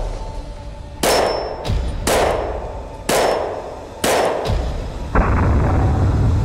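Steel gong targets being hit in quick succession, roughly once a second, each strike a sharp clang that rings on and fades before the next.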